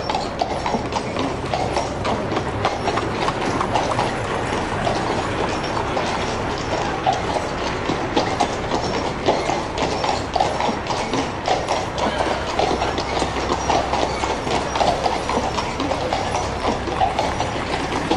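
Horse hooves clip-clopping with the rattle of a heavy wooden wagon's iron-rimmed wheels, a dense, steady clatter of many small knocks.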